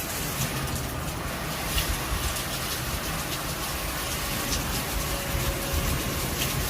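Hailstorm with heavy rain pelting down: a dense steady hiss broken by many sharp individual hailstone impacts.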